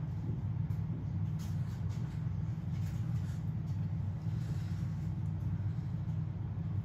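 A steady low mechanical rumble with a constant hum, unchanging throughout.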